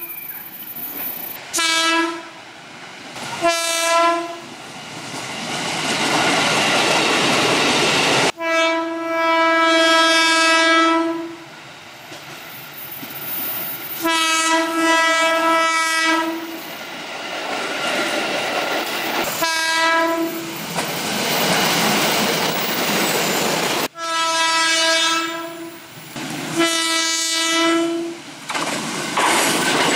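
KRL Commuter Line electric commuter trains sounding their horns: about seven blasts of one steady pitch, a couple short and the rest one to three seconds long, the longest about three seconds. Between the blasts comes the steady rush and wheel clatter of trains passing.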